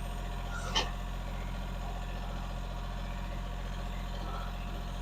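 Mahindra tractor's diesel engine running steadily, with one short knock just under a second in.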